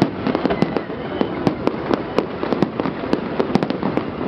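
Aerial fireworks display: shells bursting in a fast, irregular run of bangs and cracks, several a second, over a continuous crackling haze.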